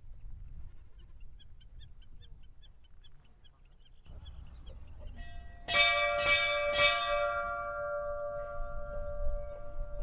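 Church bell struck three times in quick succession, about half a second apart, its tone ringing on and slowly dying away.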